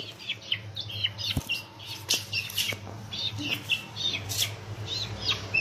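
Young chickens peeping: short, high chirps, each sliding down in pitch, repeated a few times a second, with a sharp knock about a second and a half in.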